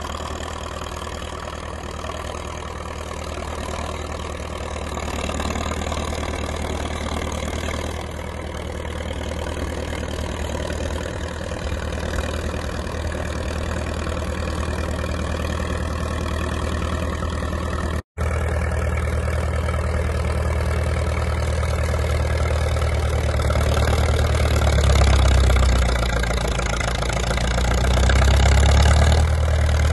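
International Harvester TD-6 crawler's diesel engine working steadily under load as it pushes a vee snowplow through deep snow, growing louder as it comes closer. The sound drops out for an instant about 18 seconds in.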